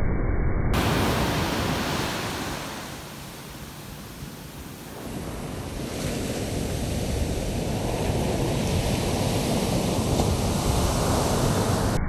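Heavy surf breaking and washing up a beach, a steady crashing hiss. It eases off a few seconds in, then builds again as the next wave breaks.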